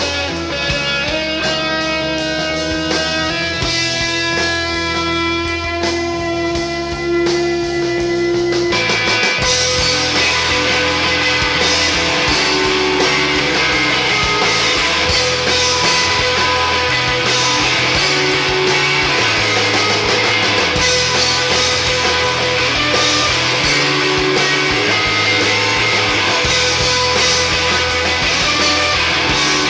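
Rock song played back from a 45 rpm vinyl record, with guitar prominent. A sparser melodic guitar passage runs for about the first eight seconds, then the full band comes in much louder and denser and keeps going.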